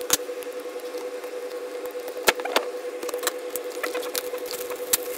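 Handling noise as a desk calendar is unwrapped: shrink-wrap plastic crinkling and a cardboard box scraping, with scattered sharp clicks and a few louder taps. A steady hum runs underneath.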